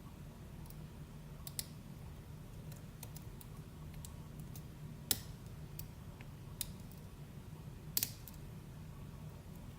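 Small scattered metallic clicks of a thin knife pick and tension bar working the pins inside an ASSA d12 high-security lock during picking, with sharper clicks about five and eight seconds in. A steady low hum runs underneath.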